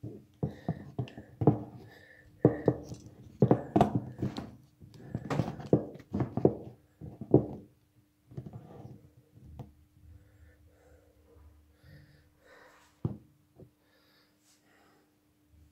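Phone camera being handled and carried: irregular knocks and rubbing on the microphone for the first several seconds. It then goes mostly quiet as the phone is set down, with one sharp thump about thirteen seconds in and a faint steady hum throughout.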